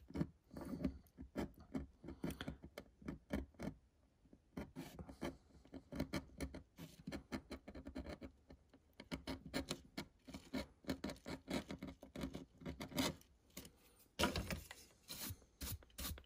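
Hobby knife blade scratching and digging into hardened hydrocal plaster, a run of short, irregular scrapes as a crack is carved into the surface. Near the end a bristle brush sweeps across the plaster, a denser brushing scrape.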